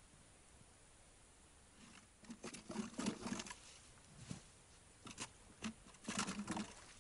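Irregular crunching and clicking close to the microphone. A dense cluster comes about two seconds in, then a few single crunches, then another cluster near the end.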